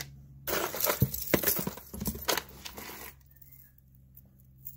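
Metal costume jewelry clinking and jangling as hands rummage through a pile of it. A clatter of small sharp clicks starts about half a second in and stops about three seconds in.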